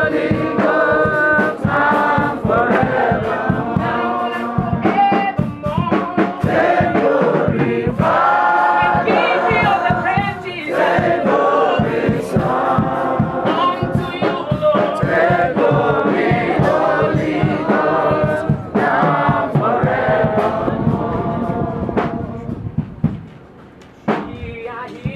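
A group of voices singing together to a steady drum beat, dying away near the end.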